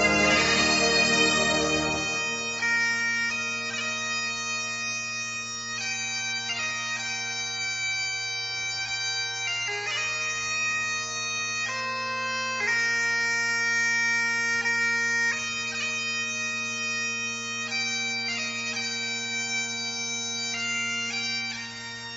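Bagpipes playing a slow tune: a melody moving note by note over a steady low drone. The sound is fuller and louder for about the first two seconds.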